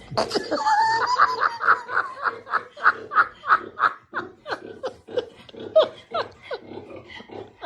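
Laughter: a long run of quick, high-pitched pulses, about three or four a second, getting weaker toward the end.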